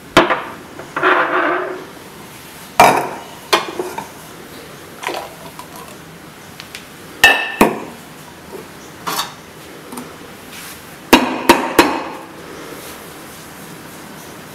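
Sharp knocks and clinks of coffee ware being handled on a counter: cups, a glass and a stainless steel milk jug set down and picked up. The knocks come at uneven intervals, with one ringing clink about seven seconds in and a quick run of three knocks near the end.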